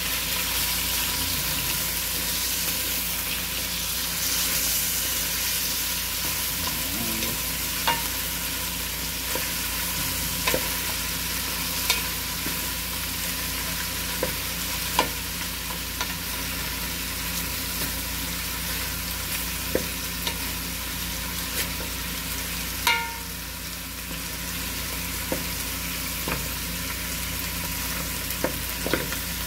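Lamb chunks sizzling as they brown in hot oil in an aluminium pot. A wooden spatula stirs them, scraping and knocking against the pot every couple of seconds, with the loudest knock about three-quarters of the way through.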